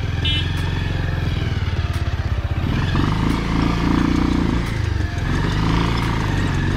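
Motorcycle engine running as the bike is ridden along, its note shifting to a different, steadier pattern about two and a half seconds in.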